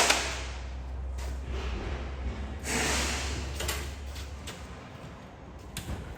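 Metal toolbox being handled: a sharp clank right at the start, then sliding and rattling sounds of its drawers or parts being moved. A low hum underneath stops a little past halfway.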